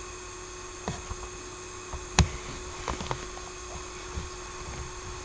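Steady background hiss and faint hum of room tone, broken by a handful of short clicks, the sharpest about two seconds in.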